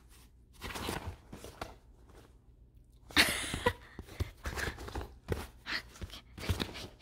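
A small dog playing rough on a bed: bedding rustling and short, quick breaths from the dog. One sharper, louder sound comes about three seconds in, followed by a run of quick short sounds, a few per second.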